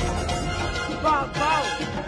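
Music soundtrack, with a short sliding melodic figure about a second in.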